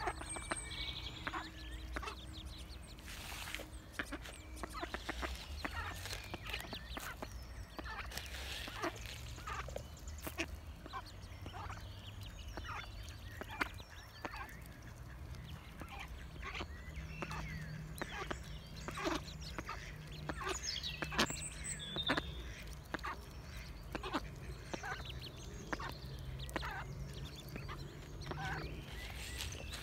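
Mallard hen and her ducklings feeding on scattered seed: quick clicks of bills pecking at the ground, with soft quacks and high duckling peeps scattered through.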